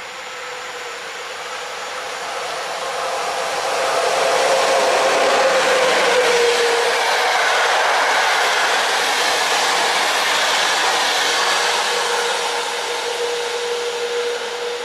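EP07 electric locomotive hauling an Intercity passenger train past at speed: the rush of wheels and coaches on the rails swells, holds as the coaches go by, then fades as the train recedes. A steady hum runs through it and drops slightly in pitch as the locomotive passes, about six seconds in.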